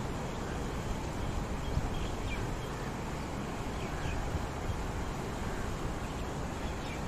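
Steady outdoor background noise with a low rumble and a few faint, short chirps now and then.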